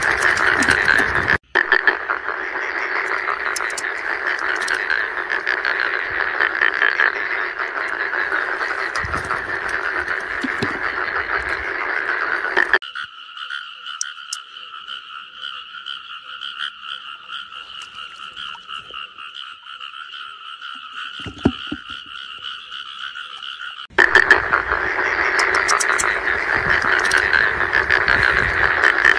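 Dense chorus of many frogs croaking at once. For about eleven seconds in the middle it switches abruptly to a quieter, higher chorus of steady trilling at two pitches, then the first frog chorus comes back.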